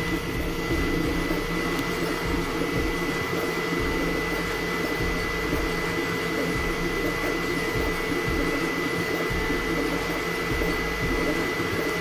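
Elegoo Neptune FDM 3D printer running mid-print: its cooling fans whir steadily with a constant high whine, over the busy fluttering hum of the stepper motors moving the print head and bed.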